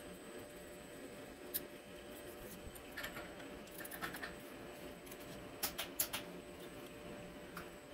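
Light metallic clicks and taps from a Bosch common-rail diesel injector and a wrench being handled in a bench fixture, with a quick run of three clicks about six seconds in, over a faint steady hum.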